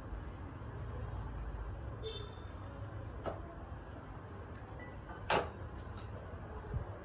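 Light clicks and knocks of things being handled on a wooden cutting board, the loudest about five seconds in, over a steady low rumble of room noise.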